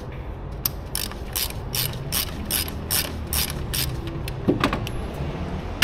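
Ratchet wrench clicking in an even rhythm, about three strokes a second, stopping about four seconds in, followed by a couple of light knocks.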